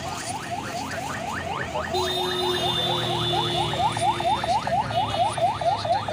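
A rapid, regular chirping, about six short rising chirps a second, with a steady held tone sounding over it from about two seconds in until midway through.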